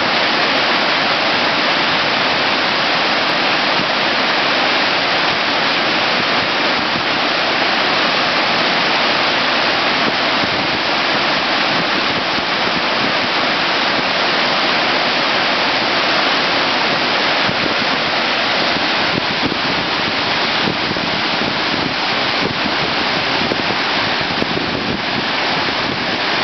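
Steady, loud rush of whitewater pouring through a boulder-strewn class III river rapid.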